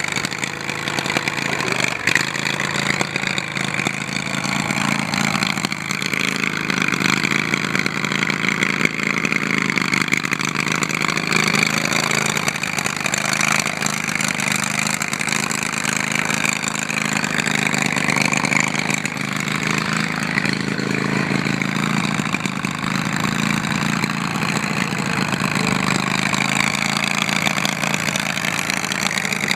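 Riding lawn mower's small gasoline engine running continuously while driven through mud and grass, its pitch rising and falling slightly with the load.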